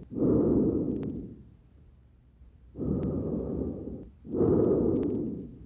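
Normal breath sounds heard through a stethoscope over the back of the chest. There are two full breaths, each a low rushing of air in and out, with a pause of about a second between them.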